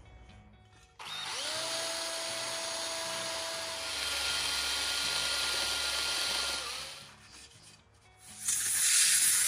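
DeWalt drill spinning up and running against an aluminium cylinder head, scouring old head-gasket material off the mating surface; its note rises as the motor spins up, gets louder partway through, then winds down. Near the end comes a burst of hissing compressed air from a blow gun.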